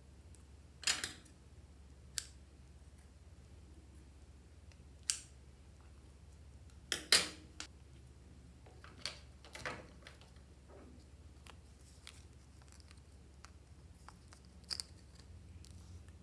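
A scattering of short, sharp clicks and taps from lipstick tubes being handled: caps and cases clicking as they are opened, closed and set down. The loudest comes a little past the middle.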